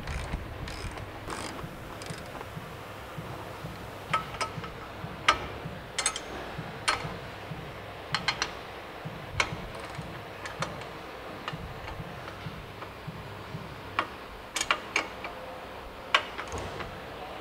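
Hand tools clicking and clinking on metal as suspension bolts are tightened by hand with wrenches and a ratchet: scattered sharp metallic clicks, some in quick little runs, with pauses between.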